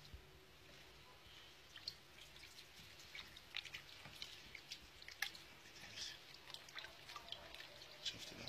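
Faint wet clicks, drips and squelches as hands knead and tear a slippery, red, meat-like material in a tub of water. The small clicks come irregularly, several a second.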